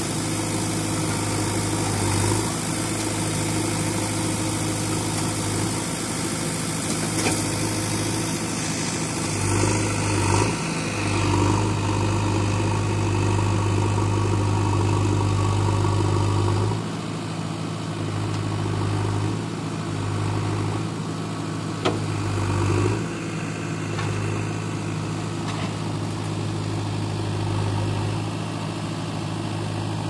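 An engine running steadily at idle, a low even hum that eases slightly about halfway through. A single sharp tap stands out about two-thirds of the way in.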